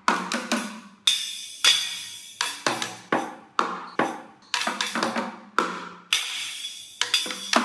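Small toy drum kit beaten with drumsticks: uneven strikes on the little drums, two or three a second, with a couple of cymbal hits that ring on for about a second.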